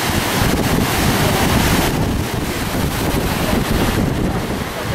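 Strong wind buffeting the microphone over rough surf breaking on the shore: a steady, loud rush of wind and water.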